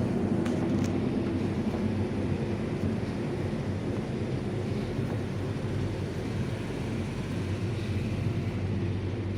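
A steady low rumble, like a distant engine running, with no clear strokes or changes.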